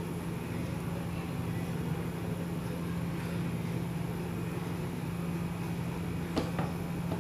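Steady low hum with a constant low tone, with two light taps close together near the end.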